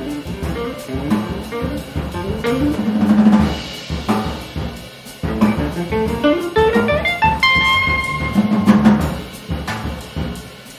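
Live instrumental band playing: electric guitar, keyboard and drum kit, with quick climbing runs of notes over busy drumming. There is a swell about three seconds in and a short drop before the band comes back in near the middle.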